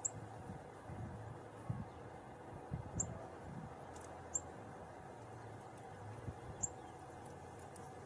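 Northern cardinal giving four sharp, high chip notes at irregular intervals, over faint low thumps and rumble.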